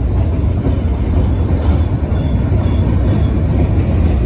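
Copper Basin Railway train passing close by, a locomotive pushing a string of ore cars: a steady, loud, low rumble of the train on the rails.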